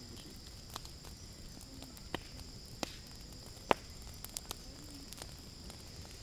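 Night insects such as crickets chirring in a steady high-pitched drone, broken by a few scattered sharp clicks, the loudest just under four seconds in.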